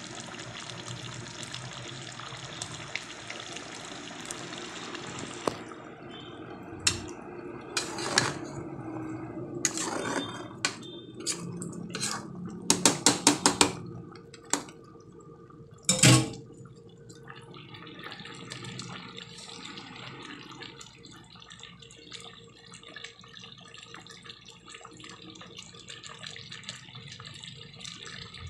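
A steady watery hiss that stops abruptly about five seconds in, then a utensil knocking in a metal cooking pot of simmering stew. There is a quick string of about seven taps and one loud knock, after which a fainter steady bubbling hiss of the simmering sauce continues.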